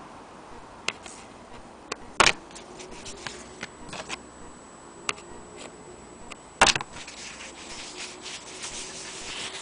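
Handling noise of denim fabric being moved and turned by hand: scattered light clicks and rubbing, with two sharp knocks, one about two seconds in and one a little before seven seconds. A faint high steady whine starts about three seconds in.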